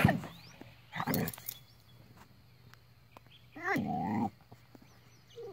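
A Border Collie barking in play at a tortoise: a loud bark at the start and another about a second in. A little past halfway it gives a short, drawn-out whining growl.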